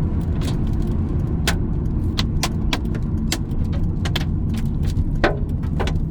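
Hailstones striking the car's body and windshield as scattered sharp ticks, a few a second at irregular intervals, heard from inside the cabin over the car's steady low road and engine rumble.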